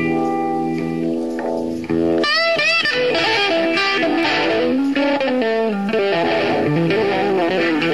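Distorted electric guitar solo. Notes are held for about two seconds, then come quick warbling bends, then a line of notes stepping down in pitch.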